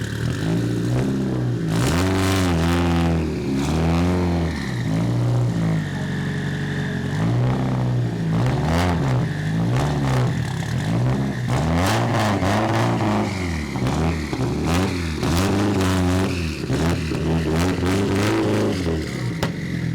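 Drag racing car engine revved over and over, the pitch rising and falling about once a second, with sharp pops scattered between the revs.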